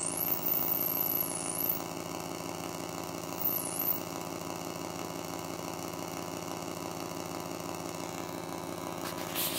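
Behringer Pro-1 analog synthesizer holding a steady buzzing drone note. In the first few seconds a high whistling tone sweeps up and down as the filter cutoff knob is turned, and again briefly a little later. There is a short noisy burst near the end.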